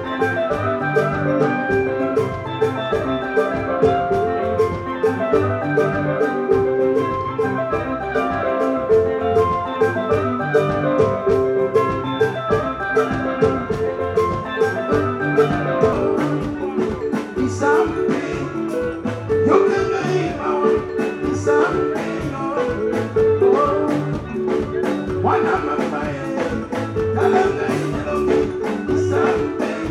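Live soukous band music: bright, quick melodic lines over a steady, even drum beat, with singing coming in about halfway through.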